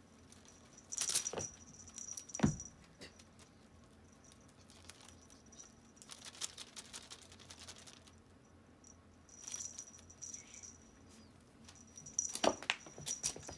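A kitten playing with a feather wand toy on a rug: several short bursts of rustling with a small bell-like jingle as it pounces and scrambles, and a soft thump about two and a half seconds in.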